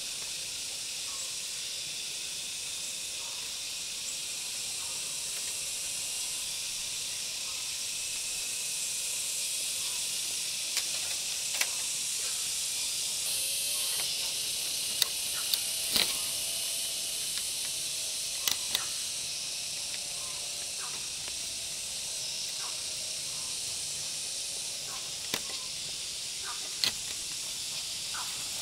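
Scattered light knocks and clicks of split bamboo fence slats being handled and tied to a bamboo rail, over a steady high-pitched hiss.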